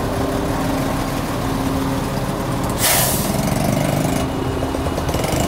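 A heavy vehicle's engine running steadily, with a short, loud air-brake hiss about three seconds in.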